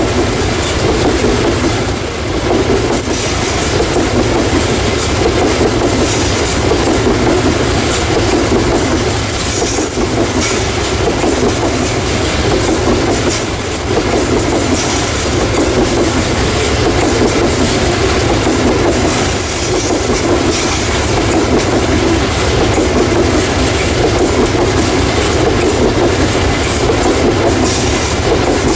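Loaded coal hopper wagons of a long freight train rolling past on a curve: a steady, loud rumble of steel wheels on rail. Brief high squeals from the wheels come and go several times, as flanges grind against the curving rail.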